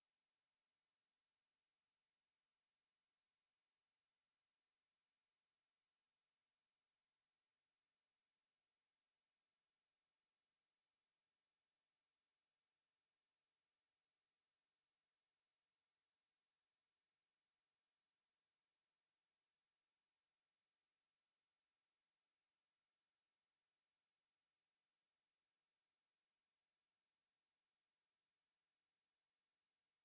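A steady, high-pitched pure sine-wave test tone at 11,502 Hz, unbroken and at a constant level.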